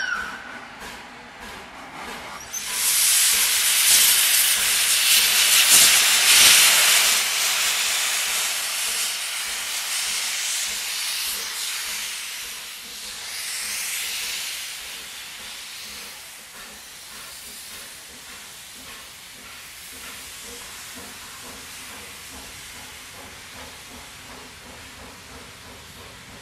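Steam locomotive setting off with steam blowing from its cylinders: a loud hiss comes in about three seconds in, swells again a little later, then dies down to a quieter running sound as the train pulls past.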